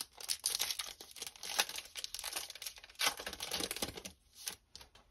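Plastic wrapper of a baseball card pack being torn open and crinkled, an irregular crackling that thins out after about four seconds.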